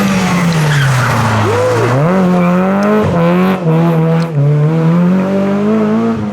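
Rally car engine slowing as it comes off the throttle, then accelerating hard up through the gears, with short breaks in the revs at each shift. A brief tyre squeal comes as it turns in.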